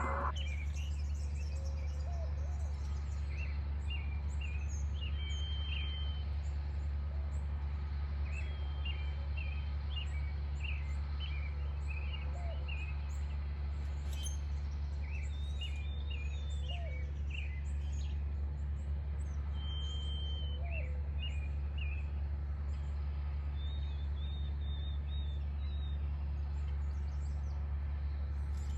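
Small birds chirping and calling in short notes, with now and then a lower call that rises at its end, over a steady low hum.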